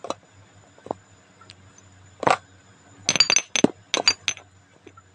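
Dishes clinking and knocking as they are handled: a couple of light single clinks, a louder knock a little after two seconds, then a quick run of about six sharp clinks near the end.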